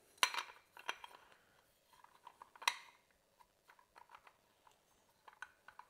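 Small metallic clicks and light taps as a floodlight lamp holder's threaded nipple is fitted into a weatherproof cover plate and twisted into place. Two sharper clicks stand out, one just after the start and one a little under three seconds in.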